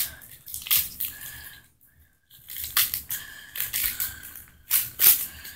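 Foil wrapper of a Pokémon trading-card booster pack crinkling and being torn open by hand, in several irregular bursts of crackle.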